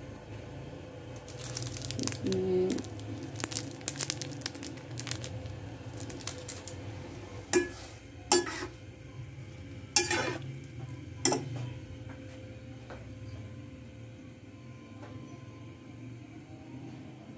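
Metal spatula scraping and clinking against an aluminium pot while stirring instant noodles, with four sharp clanks of metal on metal midway. A steady low hum runs underneath.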